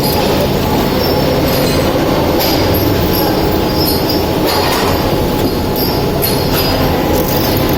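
Automatic PLC-controlled fan-shaft drilling machine running: a steady loud mechanical hum and grind from its motors and drills working steel shaft, with a few short clicks.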